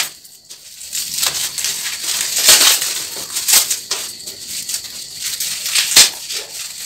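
Product packaging being handled and opened by hand: irregular rustling and crinkling, with several sharper crackles.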